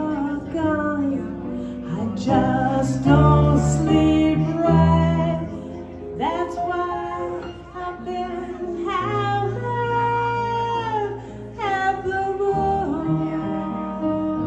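A woman singing a jazz-blues song to electric keyboard accompaniment, her voice holding long notes that slide up and down in pitch over steady low bass notes.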